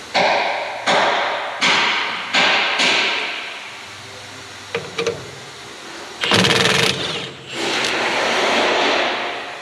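Cordless impact wrench hammering in four quick bursts, then in two longer runs, spinning the bolts of a transmission housing cover, with a couple of light clicks in between.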